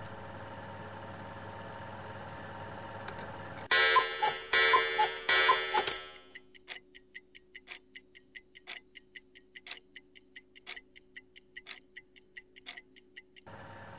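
A film projector's steady hum, then three loud ringing strikes about two-thirds of a second apart, then a clock ticking at about four ticks a second over a faint low tone, stopping suddenly near the end.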